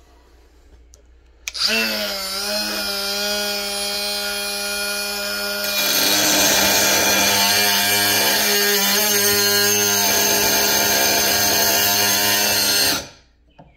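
Snap-on 14.4 V brushless inline die grinder with a 2-inch cutoff wheel: the motor starts with a high whine about a second and a half in, and about six seconds in the wheel bites into clamped steel, adding a harsh grinding hiss. It cuts out suddenly near the end, the way its overload safety switch shuts it off when too much pressure is put on the wheel.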